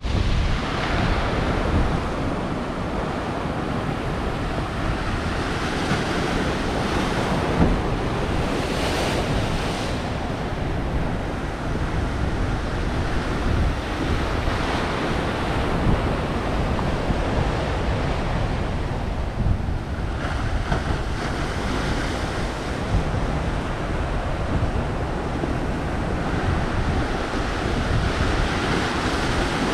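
Ocean surf washing against black lava rocks: a steady rushing wash that swells up every several seconds as waves break and drain. Wind buffets the microphone with a low rumble underneath.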